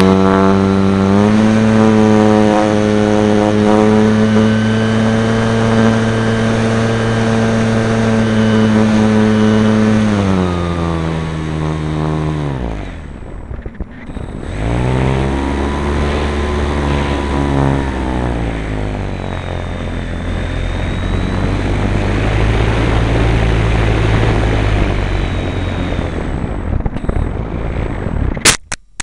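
Electric motor and propeller of an Edge 540T 3D radio-controlled aerobatic plane, heard from under its landing gear with wind rushing past. The whine climbs to full throttle in the first second and holds steady, drops away and nearly cuts out about halfway, then powers back up and settles lower before throttling down near the end.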